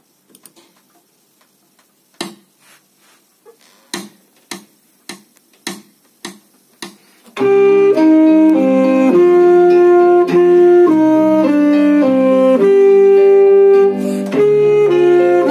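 Alto saxophone playing a slow melody of held notes, which starts about seven seconds in. Before it comes a run of evenly spaced taps, about two a second.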